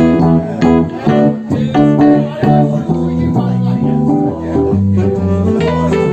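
Live band of drums, keyboard, electric guitar, saxophone and electric bass playing a song, with the guitar to the fore. Notes are struck on a steady pulse of about two a second at first, then held longer.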